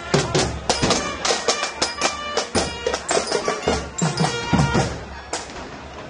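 Marching band of snare drums and a bass drum playing a fast, steady beat, with a few held high notes over the drums; it fades about five seconds in as the band moves on.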